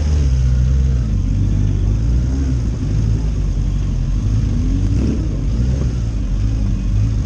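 Motorcycle engine running at low revs, its note rising and falling slightly as the throttle changes, with other motorcycles running nearby.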